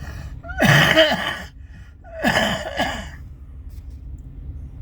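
A man coughing twice, each cough lasting about a second, the second coming about a second and a half after the first.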